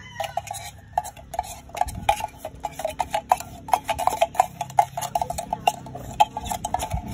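A metal spoon scraping and tapping inside a tin can to get out the last of the condensed milk: a quick, irregular run of metallic clicks and scrapes with a ringing tone.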